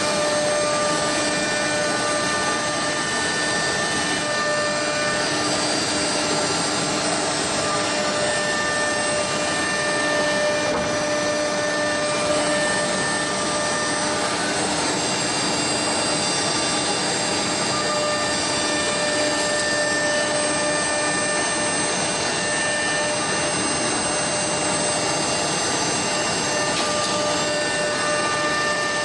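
CNC router spindle machining a wood furniture panel: a steady high whine over a rushing hiss from the dust extraction, with a few whine tones fading in and out as the cut goes on.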